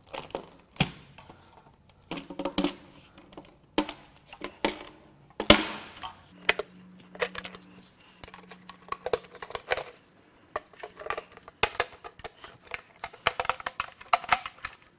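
Metal hand tools and engine parts being handled: irregular clinks, clanks and knocks, some ringing briefly.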